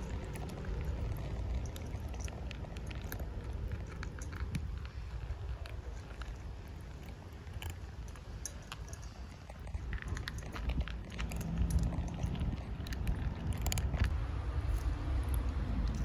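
Several cats eating dry kibble, a scatter of short crunches and clicks from their chewing over a steady low rumble.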